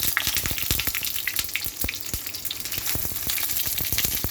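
Eggplant frying in hot oil in a kawali: a steady sizzle crowded with sharp pops and crackles. The oil is spattering from water left on the freshly washed eggplant.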